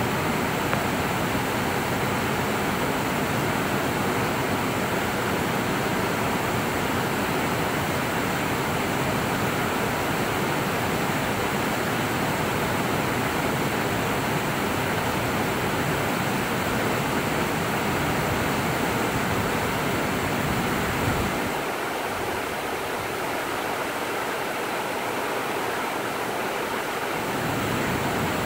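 Creek water rushing steadily over a wide, low cascade of stepped rock ledges. The deep rumble under it drops away for about six seconds past the middle.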